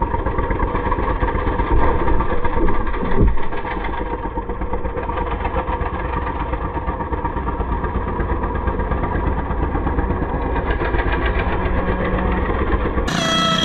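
Riding-mower engine with two upright exhaust stacks running hard under the driver, heard up close. It gets louder about two seconds in, with a heavy thump a little after three seconds.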